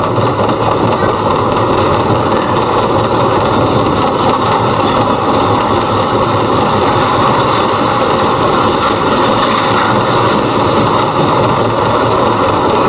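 Children's ride-on train running: a steady mechanical rumble of the cars travelling along the track.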